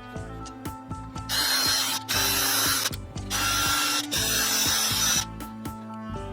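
A power tool runs in four short bursts, each under a second, over background music with a steady beat.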